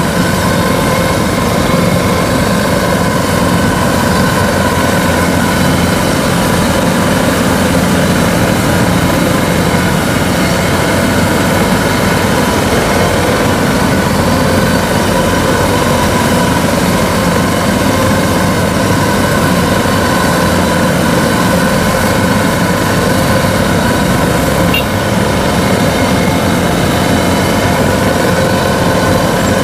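Kubota DC-93 combine harvester's diesel engine running at a steady pitch as the machine travels along the road on its rubber tracks.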